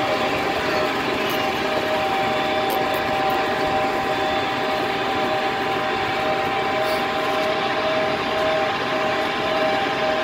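Farm tractor engine running steadily as it tows a hay wagon, heard from the wagon just behind it: an even drone with a constant pitch.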